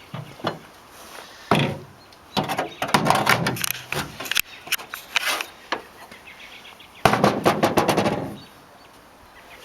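A power driver driving screws into the new wood framing of a jon boat, in four bursts of rapid rattling clicks, the longest about two seconds in and a dense one near the end.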